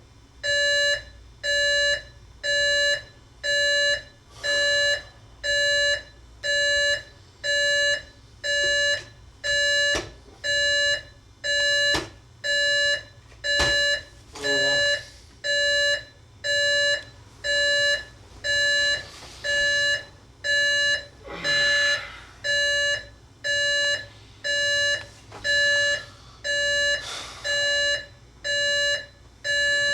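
Electronic alarm clock beeping, one steady beep about every second. A few sharp knocks and some rustling sound between the beeps about halfway through.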